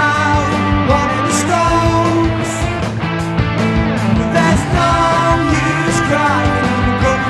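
Rock band playing an instrumental passage: a lead guitar line with sustained, bending notes over bass and drums, with cymbal hits in a steady rhythm.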